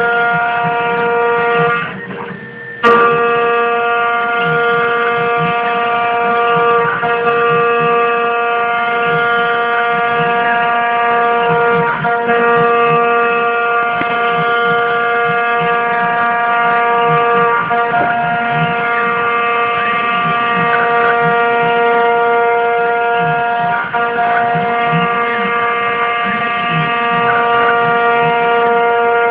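CNC 3040 machine's spindle whining at a steady pitch while its end mill cuts a circular groove in metal plate, with rough cutting chatter underneath. The whine drops out for about a second near the start and comes back with a sharp click.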